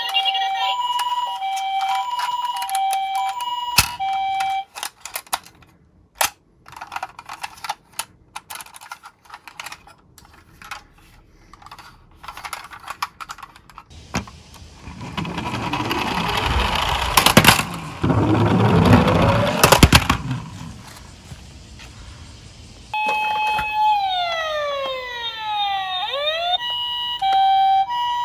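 Toy ambulances' electronic sirens: a hi-lo two-tone siren at the start and again near the end, and a run of repeated falling electronic sweeps shortly before it. In between come clicks and clatter of hard plastic toys being handled, and a loud whirring, rattling stretch with two sharp knocks.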